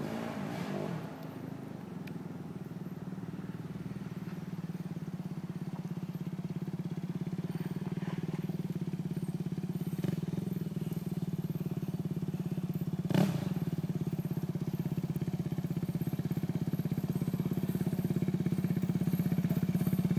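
Quad bike (ATV) engine running at a steady note in the distance, slowly growing louder as the quad comes closer. A single sharp tap partway through.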